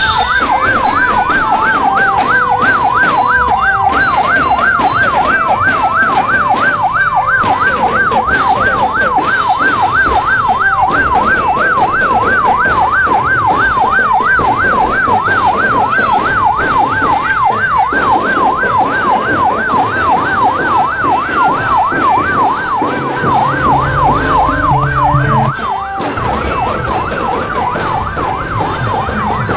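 Electronic siren on a fast warble, its pitch sweeping up and down between two notes a few times a second without a break. It drops a little in level near the end.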